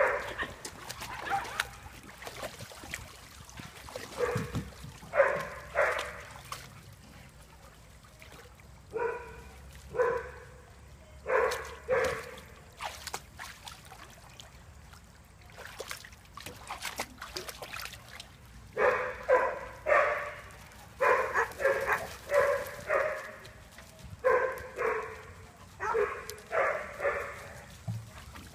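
A dog barking repeatedly in short bouts, falling quiet for a few seconds midway, then barking steadily about twice a second.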